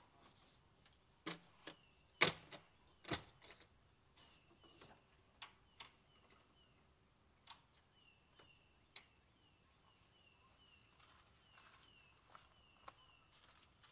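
Sharp knocks and clunks from the folding roof and wall panels of an Aliner A-frame pop-up camper being lowered and latched, the loudest about two seconds in, then scattered clicks. Behind them a bird repeats short, high, falling chirps.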